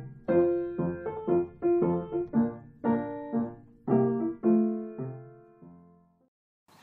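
Solo piano music: a melody of struck notes, each ringing and decaying, that slows and dies away about six seconds in.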